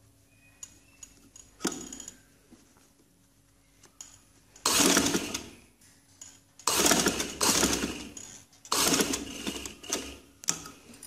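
Sewing machine stitching fabric in three short runs of about a second each, with brief pauses between them while the fabric is guided.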